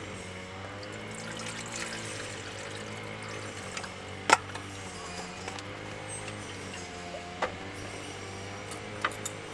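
Soft background music, with a few sharp metal clinks of camping cookware being handled; the loudest clink comes about four seconds in, and two more come close together near the end.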